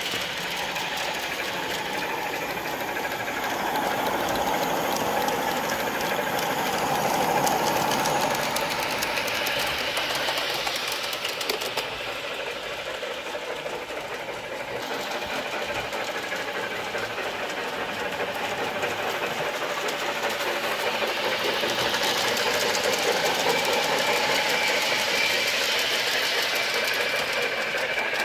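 Garden-scale model train, a small brass locomotive hauling a few wagons, running on the track with a steady rhythmic mechanical clatter. It grows louder and fainter as the train comes near and moves away, twice.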